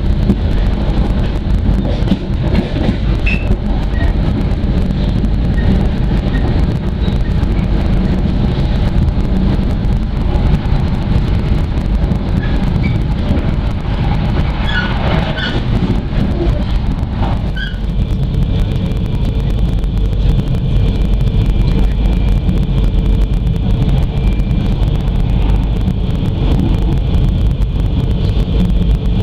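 Running noise of a train at speed, heard from inside the passenger car: a steady, loud rumble of wheels on the track. A few light clicks come about halfway through, and a faint steady whine joins in about two-thirds of the way through.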